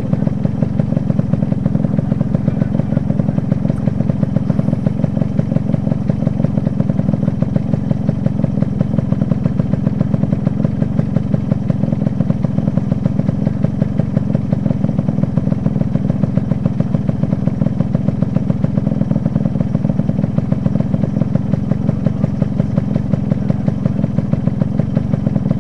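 Motorcycle engine idling steadily with an even, regular beat.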